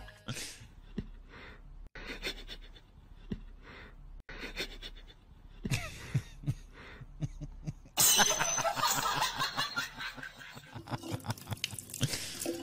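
A man's stifled laughter: short breathy bursts of giggling through his nose and mouth. About eight seconds in, a louder, busier stretch of noise from the compilation's own audio begins.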